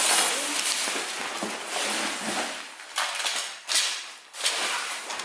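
Nylon storage bag and the folded mesh cat tent inside it rustling as the tent is pulled out and handled, with several louder swishes in the second half.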